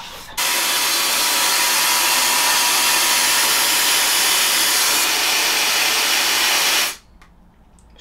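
Sylph Turbo hair dryer switched on, blowing with a steady rush of air and a thin even whine, then switched off about seven seconds in.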